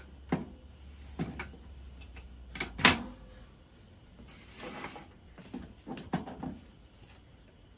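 Objects being handled: a series of separate knocks and clicks, the loudest about three seconds in, with a soft rustle around five seconds.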